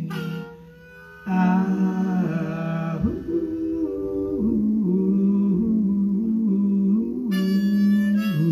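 Blues harmonica playing long held and wavering notes over an electric guitar, after a short lull about half a second in.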